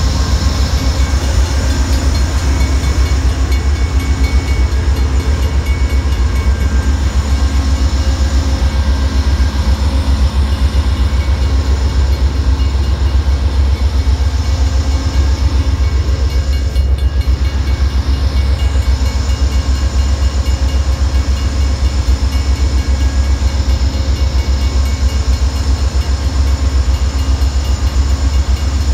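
Amtrak diesel passenger locomotive standing at the station with its engine running, an unbroken low rumble with steady whining tones over it, heard up close.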